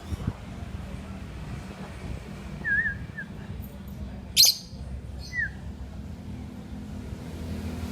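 Lovebird calling a few times: a short wavering whistle, then a sharp, loud shriek about four and a half seconds in, and a brief falling chirp a second later, over a steady low hum.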